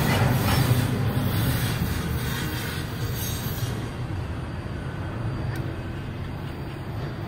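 Double-stack container freight train's well cars rolling past on the rails, a low rumble with a metallic high hiss of wheels on track. The sound fades steadily as the train moves away, the high part dying out a little over halfway through.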